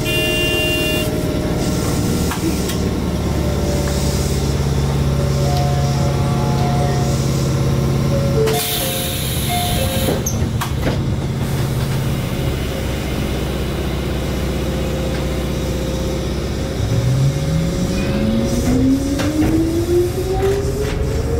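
Mizuma Railway 1000 series electric train standing at a station with a steady electrical hum, a burst of air hiss about nine seconds in, then its traction motor whine rising steadily in pitch as the train pulls away.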